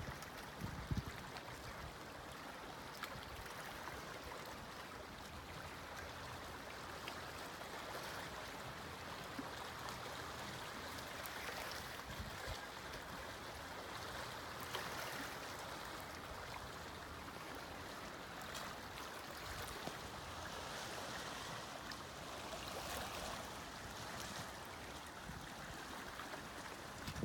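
Sea surf: small waves washing in as a steady rushing noise that swells and eases every few seconds. A brief knock about a second in.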